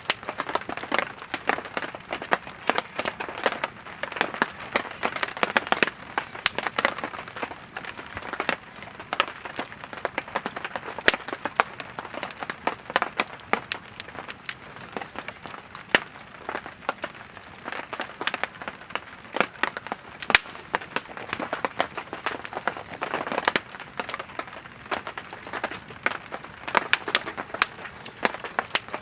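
Firewood burning in a campfire, crackling with many small sharp pops over a soft hiss of the flames.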